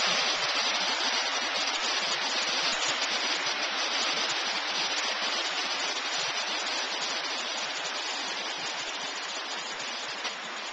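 Flood-swollen brook, thundering white water rushing in a steady, dense roar that slowly grows fainter.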